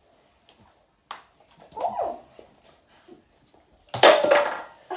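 A Nerf toy blaster fires with a sharp pop about four seconds in, followed at once by a short, loud, high-pitched cry. A fainter click comes about a second in.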